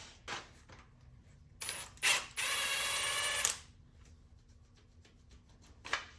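A handheld power tool driving a fastener off the engine, one steady whirring run of about a second, starting and stopping abruptly, with a few light tool clicks around it.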